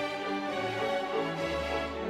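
Orchestral music with strings: held notes over a shifting bass line.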